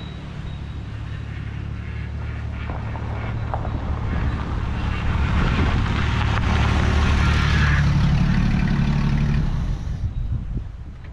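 1982 Jeep CJ7 driving slowly up a gravel driveway and past, its engine running at a steady note that grows louder as it approaches, with tyre noise on the gravel as it comes close. The sound drops off quickly about ten seconds in as it passes.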